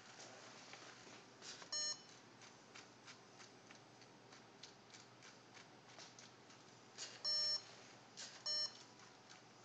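LEGO Mindstorms NXT plotter beeping three times through the NXT brick's speaker: a short beep about two seconds in, a longer one near seven seconds and a short one a second later, each just after a soft click. Faint irregular clicking from the plotter mechanism runs underneath.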